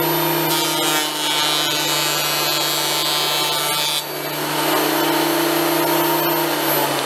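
Benchtop thickness planer running steadily. From about half a second in to about four seconds in, a board passes through the cutterhead and adds a harsher high-pitched whine of wood being planed; after that the machine runs on without load.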